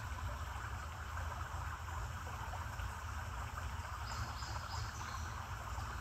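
Steady rush of creek water, over a constant low rumble, with a few faint high chirps about four seconds in.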